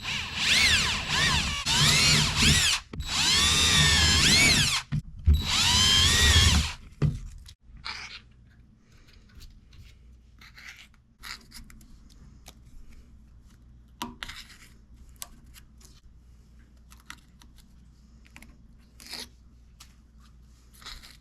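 Electric drill boring holes through small squares of birch bark, run in three bursts over the first seven seconds, its pitch rising and falling as the trigger is worked. After that, only faint clicks and handling sounds as the pieces are dealt with.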